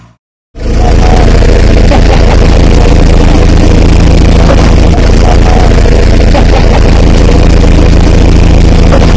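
Diesel engine of heavy farm machinery running steadily at a constant speed, very loud and close. It starts abruptly about half a second in, after a moment of silence.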